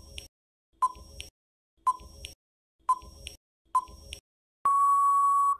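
Countdown timer sound effect: five short ticks about a second apart, then a long steady beep near the end marking that the time is up.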